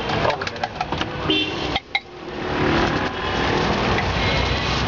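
Busy street ambience: steady traffic noise with a short car-horn toot about a second in, and a few sharp clicks in the first second and a half. The noise drops out briefly near two seconds, then carries on steadily.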